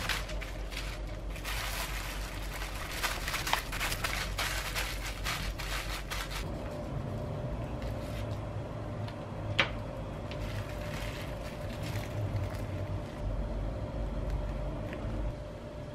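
Crinkling and rustling of the wrap around a sandwich as it is wrapped and pressed tight, dense for about six seconds. Then quieter sounds of a knife cutting through the wrapped sandwich onto a plastic cutting board, with one sharp tap about ten seconds in.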